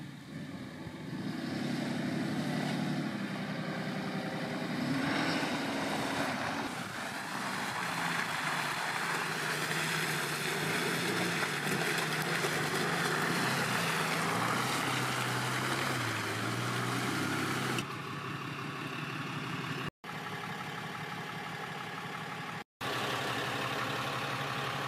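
Ram 3500's 6.7-litre Cummins turbo-diesel engine revving up and down as the pickup drives through deep mud, over a steady rush of tyres in the mud. The sound cuts out briefly twice near the end.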